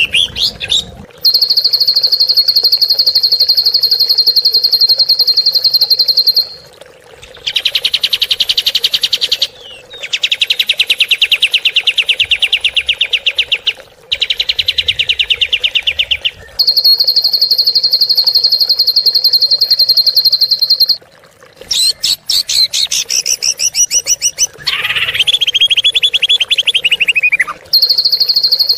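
Songbird training recording of harsh rapid-fire song ('tembakan kasar'): long, very fast rattling trills held at one high pitch, several seconds each with short breaks. About two-thirds through, the trills give way to a burst of varied high notes and a sliding whistled phrase, before one more trill.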